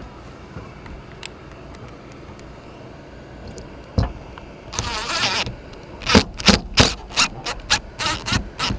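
Screwing a vent-cover bracket down onto a bus roof. A single click about four seconds in is followed by a short whir of a power drill, then a quick series of sharp knocks, about three or four a second.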